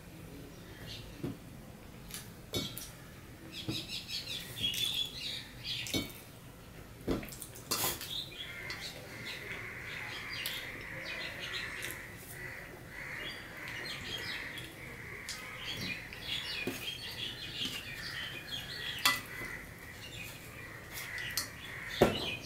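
Scattered clinks and taps of stainless steel plates and bowls, the sharpest near the end as a hand goes into a steel bowl, with birds chirping in the background.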